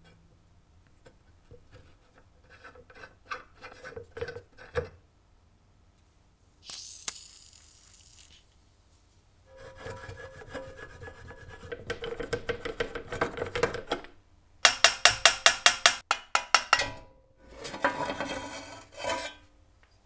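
The rusted crank handle of a vintage cast-iron rotary cheese grater is twisted back and forth on its seized shaft, with metal scraping and grinding. There is a short spray hiss about seven seconds in. Later comes a loud run of fast rattling strokes, about eight a second, then more scraping.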